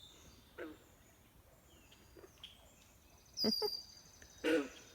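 Pond chorus: a few short, throaty frog calls, the loudest two near the end, with birdsong and a high whistled bird note over them.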